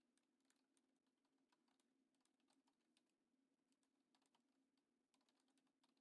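Near silence: only very faint scattered clicks over a low steady hum.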